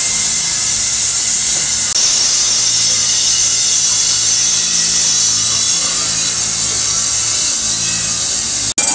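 Electric motor spinning an aluminium pressure-cooker body on its shaft, with a steady hum and a continuous hiss of the metal being rubbed as it turns. The sound breaks off briefly near the end.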